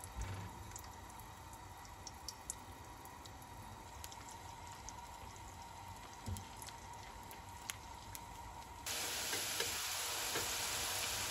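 Potato fries sizzling in hot oil in a frying pan during their second fry after freezing. Faint scattered crackles at first, then about nine seconds in the sound suddenly becomes a loud, steady sizzling hiss as the oil bubbles hard around the fries.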